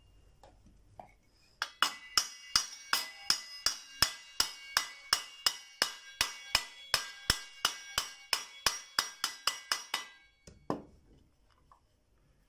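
Hammer tapping the ceiling fan's end cover about 25 times, driving it down over the newly fitted ball bearing. The taps are sharp and ringing, about two to three a second, and come faster near the end before they stop.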